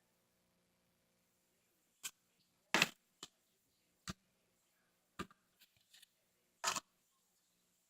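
A handful of short, irregularly spaced knocks and clicks of small objects being handled and set down, about six in all, the loudest a little under three seconds in and again near the end.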